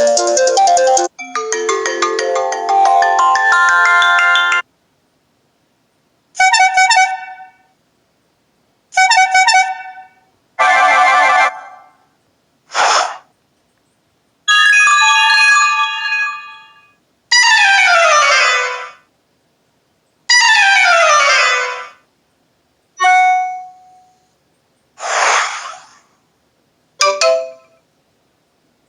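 A string of short iPhone ringtone and alert sounds played one after another through a JBL Flip 3 Bluetooth speaker, each lasting about one to three seconds with brief silences between. Among them are chiming tones, two falling tone sweeps and a couple of quick swishes.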